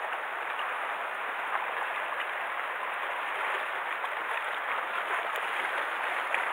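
Small sea waves washing against a rocky shore: a steady hiss of moving water with a few faint ticks of splashing.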